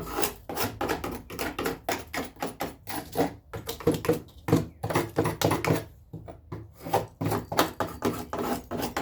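Tool scraping and knocking at a wooden door frame, a quick irregular run of short scrapes and light knocks as loose old material is cleaned out of it.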